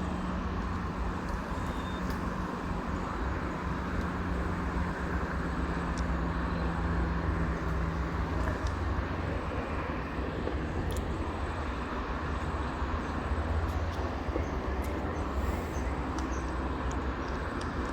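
Steady road-traffic rumble and hiss from a nearby toll road, with a low steady engine hum for about the first half that fades out around nine seconds in.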